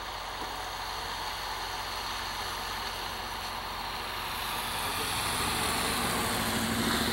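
A vehicle engine idling steadily with a low hum, under a wash of noise that grows louder about halfway through.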